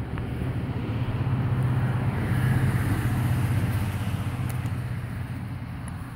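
Low, steady hum of a vehicle engine, growing louder to a peak about halfway through and then fading again.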